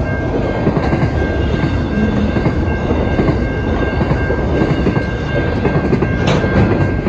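Container wagons of an intermodal freight train rolling past, their steel wheels rumbling and clattering on the rails, with a thin steady high-pitched whine over the noise. A brief sharper squeal comes about six seconds in.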